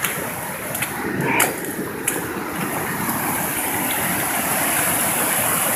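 Muddy flash-flood water rushing and churning down a normally dry wash after heavy rain, a steady rushing noise that slowly grows a little louder, with a few brief clicks in the first two seconds.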